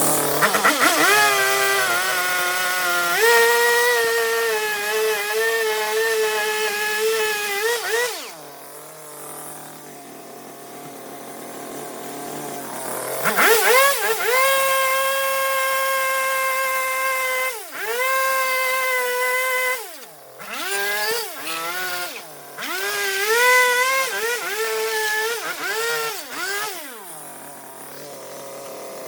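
Two-stroke chainsaw cutting wood, running at high revs in long stretches and dropping back toward idle about eight seconds in. After a second long run it gives a series of short blips of the throttle, then settles to idle near the end.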